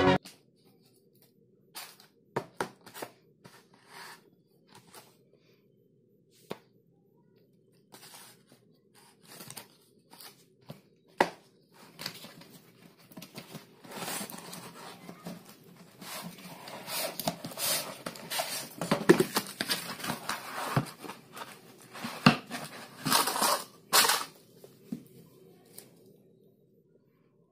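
A cardboard firework box and its paper packaging being handled and unpacked. Scattered taps and scrapes come first, then from about twelve seconds in a long stretch of paper rustling and tearing that stops a couple of seconds before the end.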